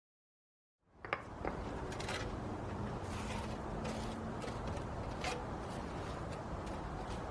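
Irregular scrapes and clicks of hand work on concrete pavers and tools, over a steady outdoor background with low rumble. The sound cuts in abruptly about a second in after digital silence.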